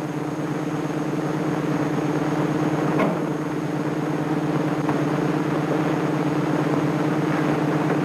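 Steady machinery hum of a submarine's reactor room, swelling slightly, with a faint click about three seconds in.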